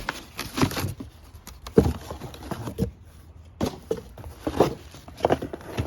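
Packaging being handled as a circular saw is unboxed: irregular rustling, scraping and several sharper knocks.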